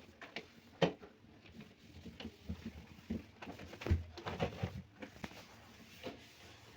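Irregular light knocks and clicks with soft rubbing: a towel wiping and drying the inside of a fridge, its plastic parts knocked as it goes.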